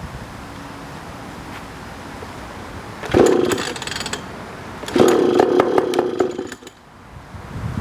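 Small 3.5 hp outboard motor being pull-started twice: two short bursts of the engine cranking over, about two seconds apart, without catching.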